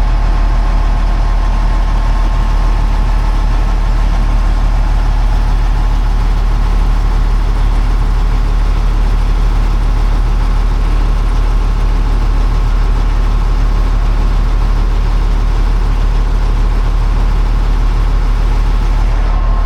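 Large engine idling steadily, with a deep, constant low hum that does not change.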